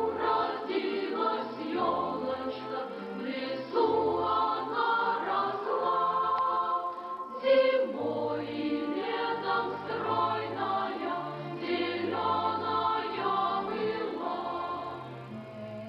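A choir singing a Christmas carol, sustained notes changing in steps.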